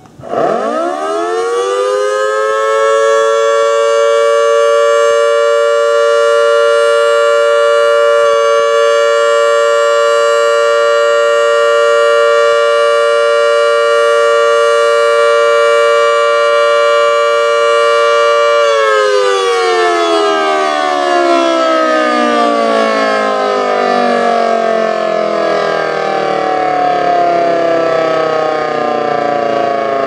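Federal Model 2T two-tone electromechanical fire siren sounding its steady alert signal: it winds up to full pitch within about two seconds, holds a loud two-note chord, then winds down with slowly falling pitch from about two-thirds of the way in. A brief hiccup about eight seconds in is typical of the rotor striking something, here a squirrel caught in the chopper.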